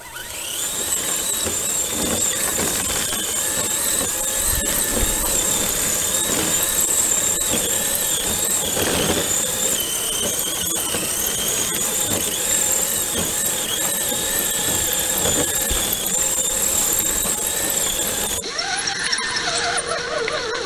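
Electric drive motor and gearbox of an Axial Trail Honcho RC crawler on RC4WD EVO Predator rubber snow tracks, whining steadily high, the pitch wavering with the throttle as the tracks churn through snow. The whine changes abruptly near the end.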